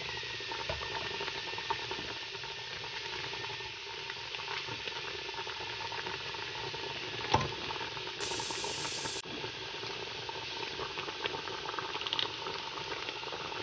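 Soup boiling in a stainless steel pot, with steady bubbling and many small pops, and a single knock about seven seconds in.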